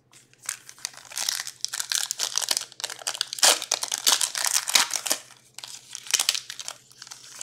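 Plastic packaging crinkling and crackling in irregular bursts as trading cards are handled and unpacked.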